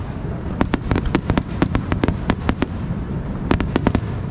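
Fireworks going off: a quick string of sharp bangs and crackles about half a second in, a short pause, then another brief cluster, over a steady low rumble.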